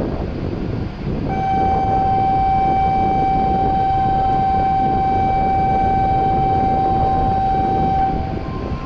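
Platform departure signal, an electronic buzzer holding one steady tone for about seven seconds, over a steady rumble; it warns that the train is about to leave. A brief higher tone sounds near the end.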